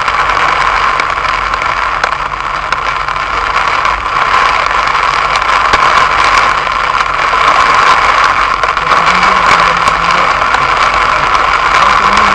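Heavy rain pouring down on a car in a steady loud hiss, with scattered sharp taps of drops striking the body and glass.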